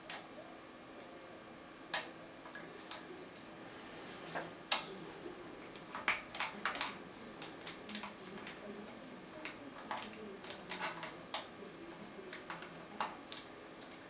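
Irregular small metallic clicks and ticks of lockpicking tools working in the keyway of a DOM IX6 KG euro cylinder clamped in a vise, coming in uneven clusters with a few sharper taps.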